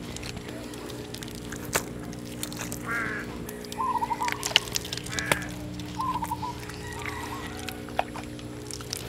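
Short, broken bird or fowl calls repeat several times over a steady low hum, with scattered soft knocks and clicks as lumps of wet clay are handled.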